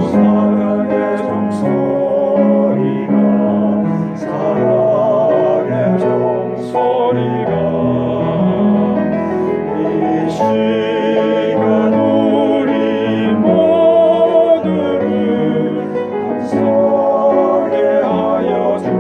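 A small vocal ensemble singing a gospel song in parts with vibrato, over piano accompaniment.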